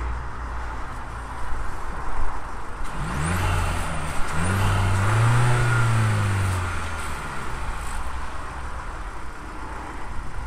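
The 2021 Mercedes-Benz C180's 1.5-litre four-cylinder petrol engine running with the bonnet open. Around the middle it is blipped twice and then revved once, the pitch rising and falling back to idle.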